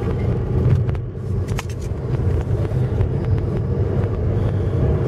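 VAZ car's 1.6-litre eight-valve engine, fitted with a bored-out 56 mm throttle body, running steadily as the car drives slowly, heard from inside the cabin with road noise, and a few light clicks about one and a half seconds in.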